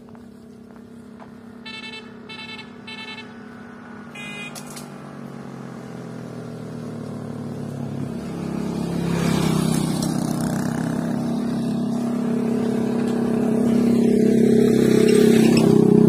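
A motor vehicle's engine running with a steady hum that grows louder as it approaches, loudest near the end. A few short high notes sound about two seconds in.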